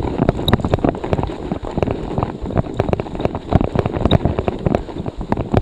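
A bicycle ridden through deep snow, with wind buffeting a handlebar-mounted camera's microphone. The tyres and frame give many short, irregular clicks and knocks as they bump over the snow.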